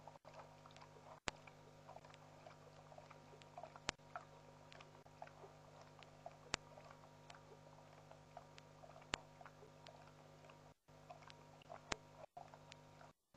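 Faint night ambience from a waterhole webcam microphone: a steady electrical hum, a sharp click about every two and a half seconds, and scattered faint short chirps. The sound cuts out completely for moments a few times near the end.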